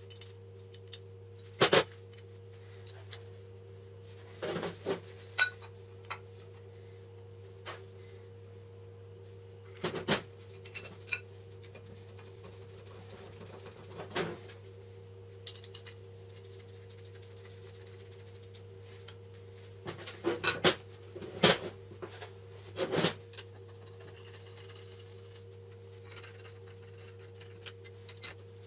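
Steel vise parts and socket-head cap screws being handled and set down by hand: irregular metal clinks and knocks, busiest about twenty seconds in, over a steady low hum.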